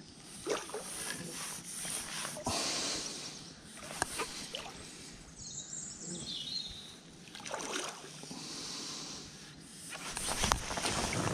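Intermittent rustles and light knocks of handling, over a faint steady outdoor background noise.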